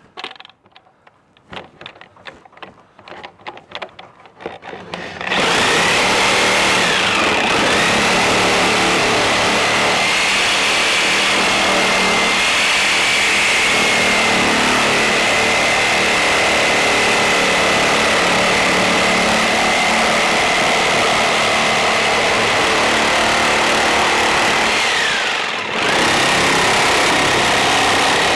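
A few knocks and handling clicks, then about five seconds in a power saw starts and runs steadily under load with a high whine as it cuts along the siding line. About 25 seconds in it briefly slows, dropping in pitch, then comes back up to speed.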